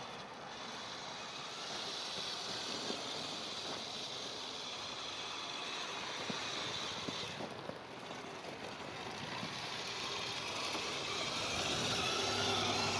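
Radio-controlled scale snow cat driving, its motor and gears whirring with a mechanical rattle, growing louder near the end.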